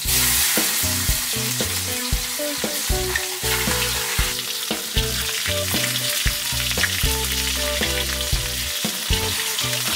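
Whole Probarbus jullieni fish sizzling and crackling in hot oil in a wok as they are laid in. A low tune with notes changing several times a second runs underneath.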